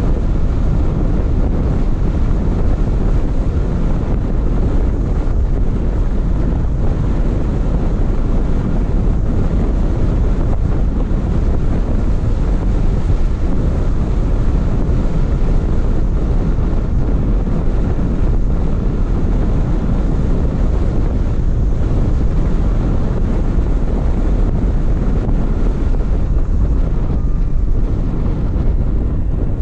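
Steady wind rumble on the microphone of a camera in a moving car, heaviest in the low end, with road noise beneath it.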